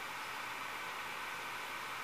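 Steady faint hiss with a thin constant high tone: background noise, with no distinct event.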